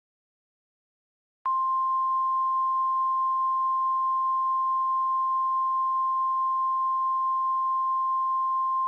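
Emergency alert attention tone: after a second and a half of silence, a single steady high-pitched tone comes in and holds without change. It announces an emergency warning message, here a tornado warning.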